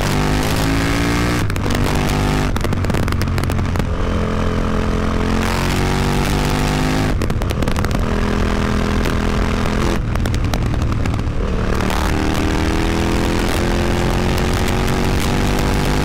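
KTM 950 Adventure's V-twin engine running through an Akrapovic exhaust with the dB killer fitted, accelerating through the gears: the pitch climbs, drops back at each shift and climbs again, several times.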